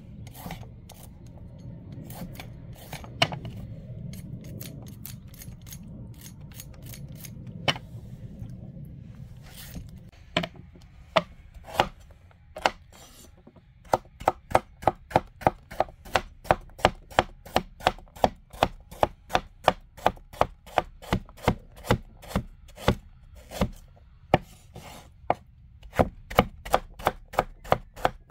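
Carrots being scraped with a swivel vegetable peeler, a low rubbing sound with a few clicks. About ten seconds in, a large knife starts slicing carrots into rounds on a wooden cutting board, each cut a sharp knock on the board, settling into a steady rhythm of about two to three chops a second.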